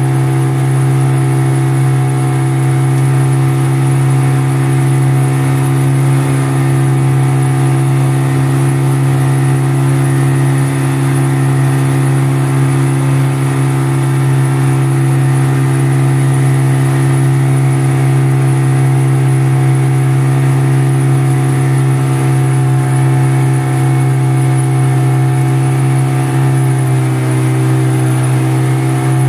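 Boat's outboard motor running steadily under way, its engine note dipping slightly in pitch near the end.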